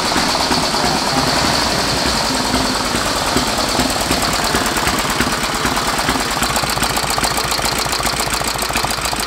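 The c.1916 Traub motorcycle's home-built V-twin engine running steadily, with a rapid, even firing beat.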